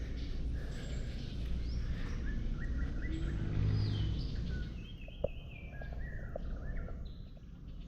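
Birds calling from the jungle edge: a run of short chirps and whistles, some rising and some falling, over a steady low rumble that swells briefly about halfway through.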